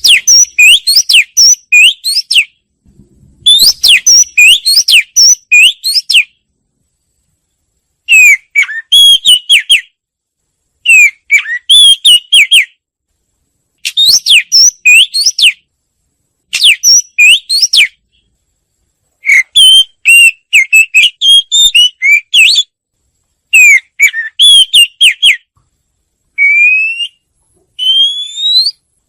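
Wagtail song: loud phrases of rapid, sharp, rising whistled notes, each phrase about two seconds long, repeating after short pauses. Near the end the phrases give way to a few slower, softer rising whistles.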